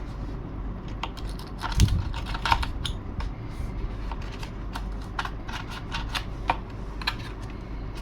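Irregular small clicks and taps of hand work on the model's cockpit, making a hole by hand for the latch pin, with a louder knock about two seconds in.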